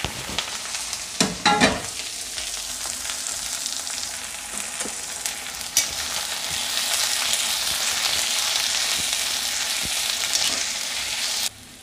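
Chopped onions with ginger-garlic paste, chilli, mint and curry leaves sizzling in hot oil in a kadai, a steady hiss. A metal slotted spoon stirs them, scraping and clicking against the pan a few times. The sizzle cuts off abruptly just before the end.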